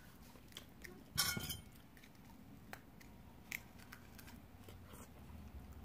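Small clicks and scrapes of a balut's shell being peeled and a metal spoon scooping inside the egg, with one louder scratchy crackle about a second in and a few sharp ticks after.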